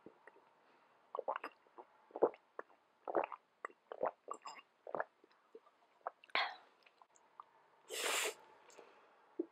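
Close-miked mouth sounds of drinking from a small bottle of yogurt drink: a series of short wet clicks and swallows. About eight seconds in comes the loudest sound, a slurp of spicy instant noodles.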